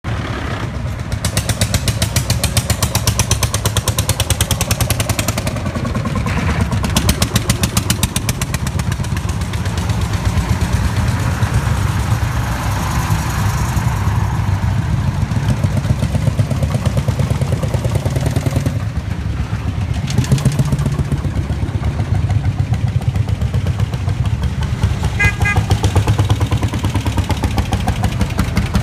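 Vintage tractors passing one after another at close range, their engines chugging in a fast, steady beat. They include Lanz Bulldogs, whose single-cylinder hot-bulb two-stroke engines give the heavy, even thudding.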